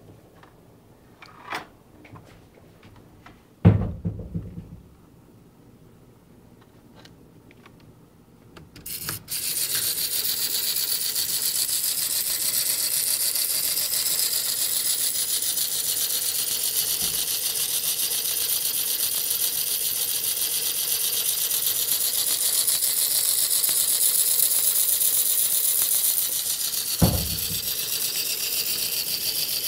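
A few clicks and a knock from handling a USB humping dog toy. About nine seconds in, the toy's small motor and gear mechanism starts up: a steady, high-pitched whirring rattle. Another knock comes near the end.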